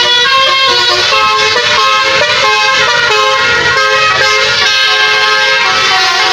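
Basuri musical bus horn playing a tune: a run of sustained horn notes stepping in pitch, several tones sounding together, over a low rumble.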